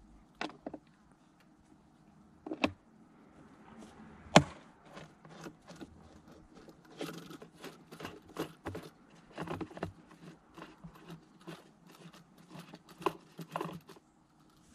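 Small plastic clicks and rattles from a car's air filter housing as it is handled and its Torx screws are taken out with a screwdriver, with one sharp snap about four seconds in, the loudest sound, and a run of quick small clicks in the second half.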